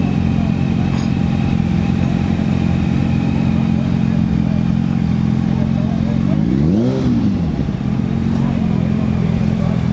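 Motorcycle engine idling steadily, revved once about seven seconds in, its pitch rising and falling back to idle.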